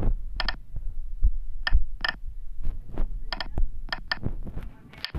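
Short, sharp key clicks from a CNC simulator app's on-screen keypad as a G-code line is typed, about eight of them, several in quick pairs, over a low thumping rumble.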